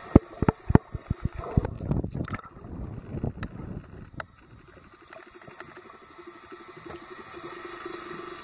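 Underwater sound picked up by a submerged camera. Several sharp clicks and knocks come in the first couple of seconds, then a short bubbling rush about two seconds in and two more clicks, before it settles into a faint steady underwater hum.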